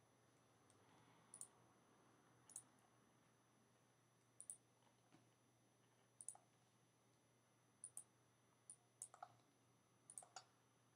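Faint computer mouse clicks, about ten of them scattered irregularly, over near silence.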